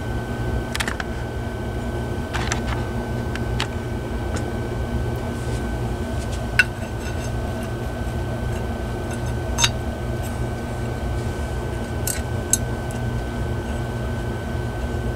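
Small metal clicks and taps as a small fan motor and its sheet-metal mounting bracket are handled and fitted together, with three sharper clicks in the second half. A steady low background hum runs underneath.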